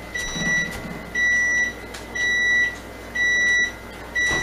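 Oven timer beeping: a steady, high electronic beep about half a second long, repeating about once a second, signalling that the cooking time is up.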